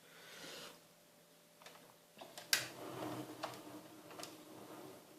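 Faint handling noises: a soft rush of breath or air at the start, then several light clicks about a second apart with a faint rubbing hum in between, as a plastic model or the camera is handled.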